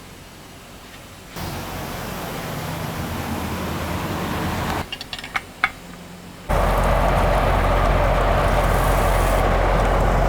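Steady vehicle running and road noise, heard in abrupt segments: a low rush that starts about a second and a half in, drops away with a few clicks, then comes back louder with a deep rumble for the last few seconds.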